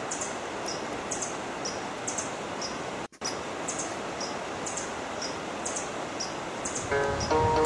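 Steady rush of flowing river water with short high chirps repeating over it. The sound drops out for an instant about three seconds in, and music comes in near the end.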